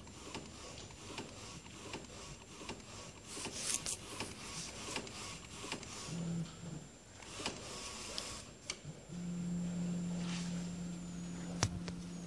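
Pangoo Jet A3 UV flatbed printer printing a nozzle check: the print-head carriage shuttles back and forth with clicks and mechanical rattling, and a steady motor hum sets in for the last few seconds.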